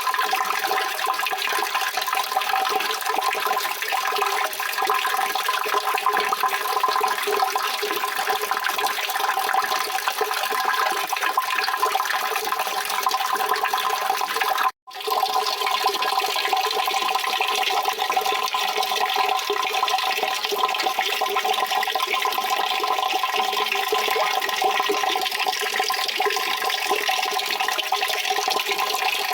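Steady rushing water, a dense continuous wash of sound. It cuts out for an instant about halfway through, then resumes unchanged.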